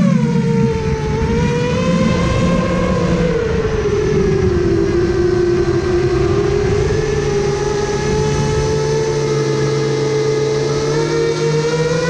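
Brushless motors and propellers of a custom FPV quadcopter, recorded on the GoPro it carries, whining steadily. The pitch drops sharply at the start as the motors slow, sags lower around the middle, and climbs again near the end.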